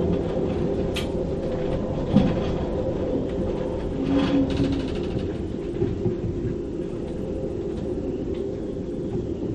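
Storm wind gusting over 35 knots in a sailboat's rigging: a steady low rumble with a held hum, broken by a few sharp knocks about one, two and four seconds in.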